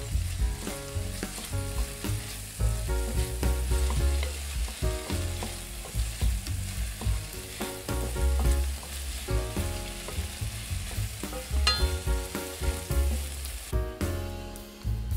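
Diced tomatoes, peppers and onion sizzling in a nonstick frying pan while a wooden spatula stirs them, over background music. The sizzling stops near the end.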